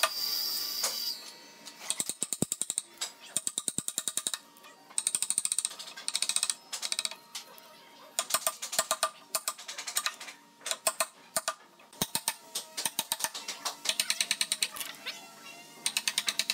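Wooden mallet striking a steel chisel, chopping a notch into a thick wooden slab: short runs of quick, sharp knocks with brief pauses between runs.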